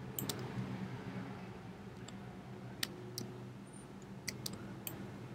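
A handful of sharp, irregular computer mouse clicks over a faint steady low hum.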